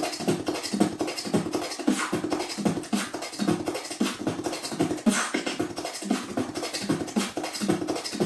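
Solo vocal beatboxing: a long, intricate beatbox rhythm of fast, dense clicks over a low beat about twice a second.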